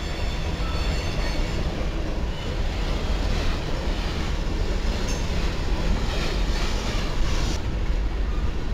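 Freight train of flatcars and covered hoppers rolling past: a steady rumble and rattle of steel wheels on the rails, with faint high-pitched wheel squeals now and then.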